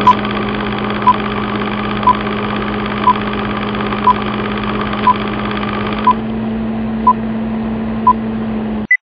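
Film-countdown leader sound effect: a steady film projector whir with a short beep every second, nine in all. A single higher beep comes near the end, then the sound cuts off.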